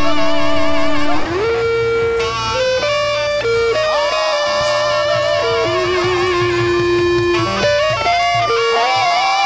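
Live praise band music: a lead line of long held notes with vibrato, sliding from one pitch to the next over a steady bass.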